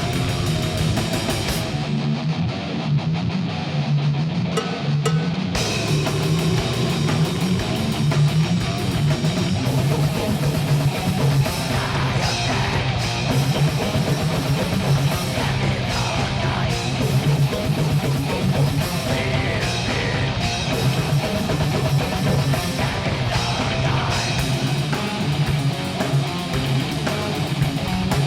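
Rock music with electric guitar and drum kit playing steadily throughout; the cymbal-bright top end drops away for a few seconds near the start, then returns.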